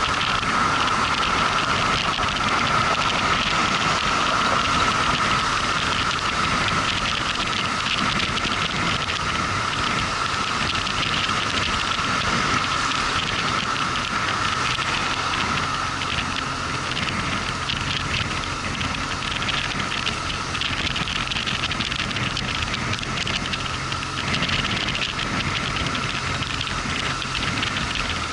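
Motorcycle ride noise: steady wind and road rush with the engine running underneath. A low steady engine hum comes through more clearly from about halfway.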